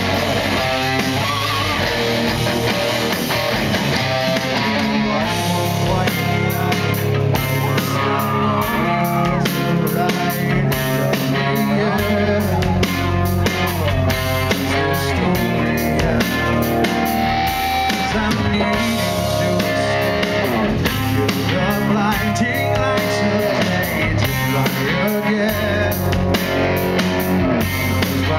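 Live rock band playing loud: distorted electric guitars, bass and a drum kit, with a male lead vocal singing over them, as heard from the audience.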